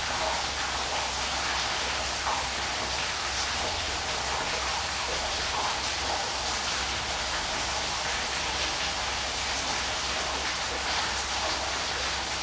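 Waterfall: a steady, even rush of falling water, with faint brief splashes scattered through it.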